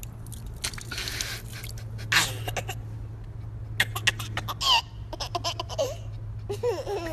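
A man and a toddler laughing together in bursts of giggles, with a high squealing laugh about two thirds of the way through.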